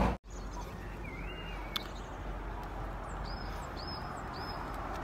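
A bird singing a few short whistled notes, one rising note about a second in and then three alike upswept notes near the end, over steady outdoor background noise. A single click sounds about two seconds in.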